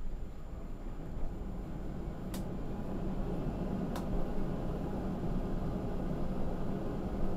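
City bus engine and road noise heard inside the cab as a steady low rumble while the bus creeps along in traffic, with two faint clicks a couple of seconds in.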